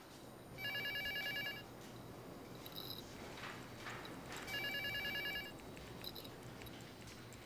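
An office telephone ringing twice with a warbling electronic trill, each ring about a second long, over faint steady office ambience.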